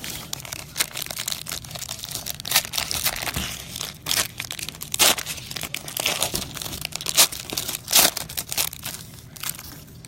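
Plastic trading-card pack wrapper being torn open and crinkled by hand, a steady run of sharp crackles that stops about a second before the end.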